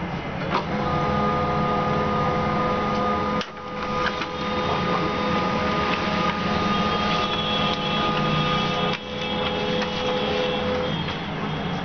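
A small electric machine running with a steady whirring hum and several held whining tones. The whine starts about a second in, drops out briefly around three and a half seconds, and mostly stops about nine seconds in, over a constant low hum.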